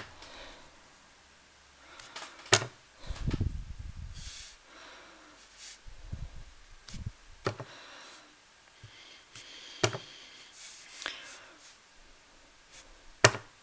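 Clear acrylic stamp block knocked against an ink pad and pressed onto card as a word stamp is inked and stamped several times: a few sharp taps spread through, with a low rumble of handling about three seconds in and light rustle between.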